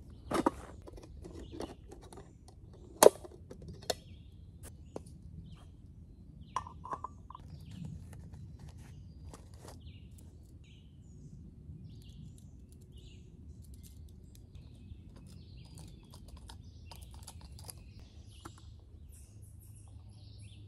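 Scattered clicks, knocks and rustles of camping gear being handled, the loudest a sharp click about three seconds in. Small birds chirp in the background, more often in the second half.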